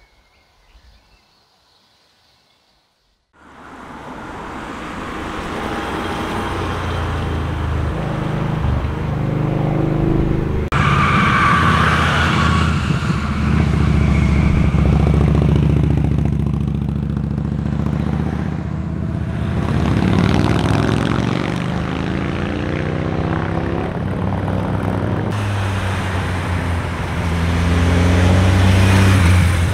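Motorcycle engines riding through a hairpin bend, their pitch rising and falling as the bikes slow for the turn and accelerate out. The sound starts abruptly about three seconds in, after a faint quiet opening, and cuts suddenly to another pass twice.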